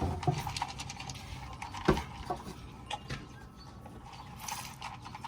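Hand-milking a goat: short hissing spurts of milk into a bowl, among scattered knocks and clatters, the loudest a sharp knock about two seconds in.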